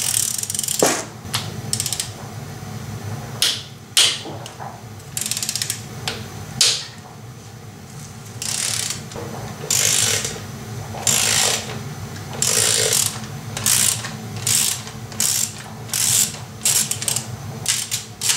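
Hand ratchet wrench clicking in repeated short strokes, some quick and some drawn out, as bolts are backed out of an engine's timing case cover.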